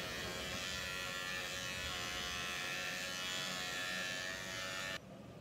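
Electric pet grooming clippers running with a steady buzzing hum while trimming a Bichon Frise's leg, stopping abruptly near the end.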